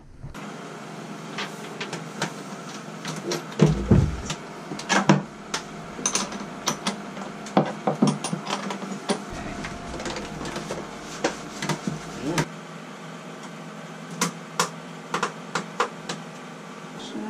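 Scattered clicks, taps and knocks of battery cables and terminals being handled and fitted in a wooden battery box, with a few heavier knocks about four seconds in, over a steady hum.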